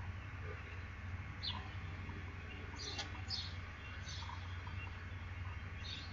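Wild songbirds chirping: a handful of short, high chirps spread through, over a steady low hum.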